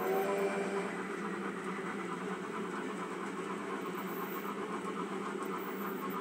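Train sounds: a steady rumble with a faint, even clatter, as the tail of a steam whistle dies away just after the start.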